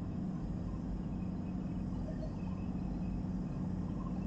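Boat's engine running steadily, a low even hum under constant background noise.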